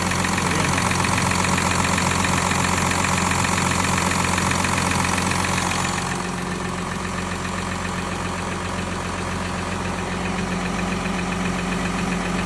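Volkswagen Touareg's 3.0 V6 TDI diesel (CRCA) idling from cold with a regular knock, the cold-engine knock the owner is recording. About halfway through the sound becomes a little quieter and duller.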